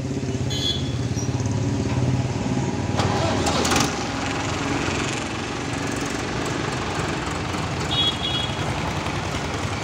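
Mahindra Arjun Ultra-1 555 DI tractor's four-cylinder diesel engine running as the tractor pulls away, the revs rising about three seconds in. Two short high chirps come near the end.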